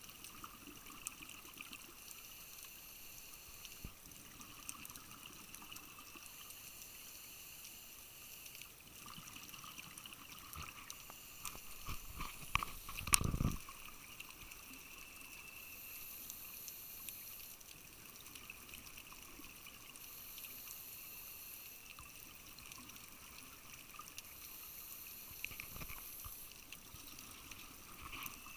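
Underwater sound of a scuba dive: a faint steady hiss with scattered small clicks, and about halfway through a louder, low, bubbling rush of exhaled air from a diver's regulator close to the camera.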